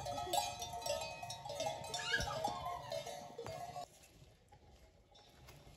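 Bells on grazing cattle clanking and ringing in overlapping tones, which cut off abruptly about four seconds in, leaving a much quieter background with a few faint clicks.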